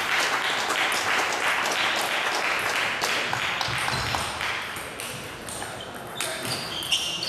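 Celluloid-type table tennis balls clicking off bats and tables, many quick hits overlapping from several rallies at once, busiest over the first few seconds.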